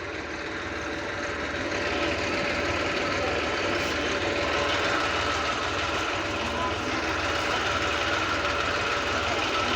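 Diesel engine of heavy farm machinery running steadily, with a low throb and a thin steady whine over it. It grows louder over the first two seconds, then holds.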